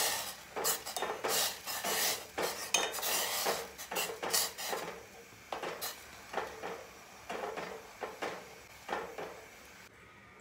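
A steel spoon scrapes and clinks against a stainless-steel pot while stirring jaggery to dissolve it in boiling water. The strokes come thick and fast at first and thin out after about halfway.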